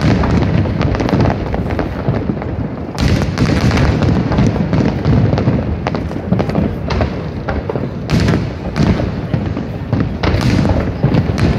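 Aerial fireworks shells going off in a dense, continuous barrage of booms and thuds. Sharper crackling bursts stand out about three, eight and ten seconds in.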